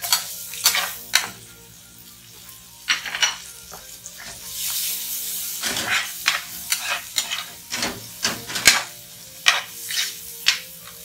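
Sliced white onion sizzling in hot oil with ginger and garlic in a frying pan, while a metal spatula stirs it with repeated scraping and knocking strokes against the pan. The sizzle swells about four seconds in, and the spatula strokes come faster, about two a second, in the second half.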